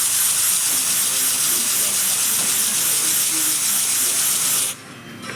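Compressed air hissing steadily through a running 3D-printed model air engine, cutting off abruptly near the end.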